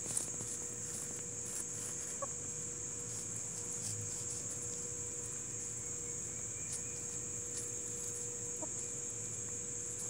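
Barred Plymouth Rock hens foraging, giving two soft clucks, one about two seconds in and one near the end, over a steady high-pitched chorus of insects.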